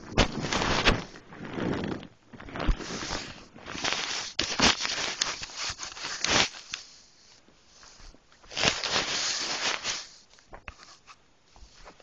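Fabric rustling and scraping handling noise: a phone's microphone rubbing and bumping against bedding as it is moved about and propped up, in a string of bursts with short quiet gaps, dying down near the end.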